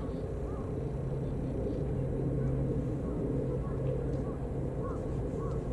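Steady low engine rumble with faint short chirps about once or twice a second.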